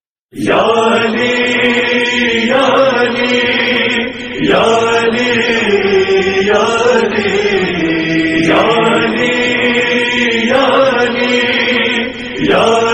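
Men's voices chanting an Urdu noha, a mourning lament for Imam Ali, together in repeated phrases of about two seconds, with a brief break about four seconds in and another near the end.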